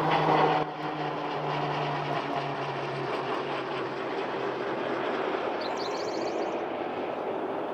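Steady hum of road traffic and aircraft noise, with a low engine drone that fades out about three seconds in. A small bird gives a short burst of high chirps near the end.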